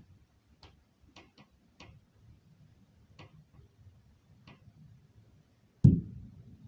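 Several faint, sharp clicks, then one heavy low thud about six seconds in: an impact in the apartment upstairs, heard through the ceiling.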